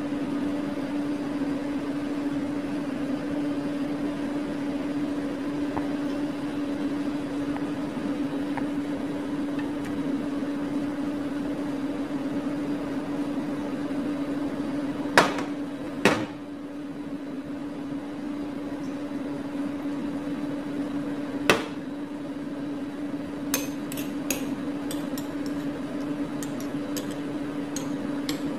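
A steady low hum from a running motor or appliance. Sharp knocks come a little past the middle, two about a second apart and one more some five seconds later, then a few light ticks near the end.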